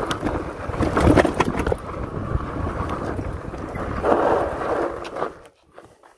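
Fat-tyre electric bike riding over rough, sandy desert ground: wind buffeting the microphone, with knocks and rattles from the tyres and frame. The noise drops away suddenly about five and a half seconds in.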